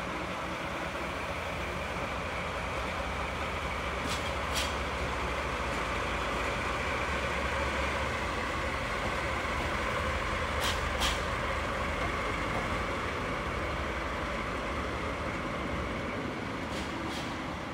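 JNR DD51 diesel-hydraulic locomotive running past slowly, its diesel engines giving a steady hum and rumble. Three sharp double clicks, about six seconds apart, come from its wheels passing over rail joints.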